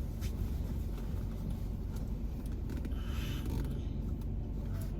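Steady low rumble inside a car's cabin with the engine idling, with a few faint clicks and rustles.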